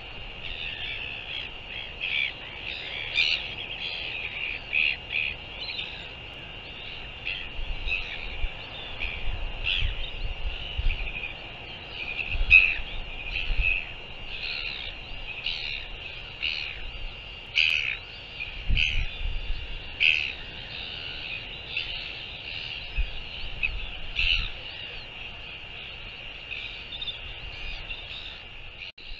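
Many short, sharp calls from wild birds, at times several a second, over gusts of wind rumbling on the microphone.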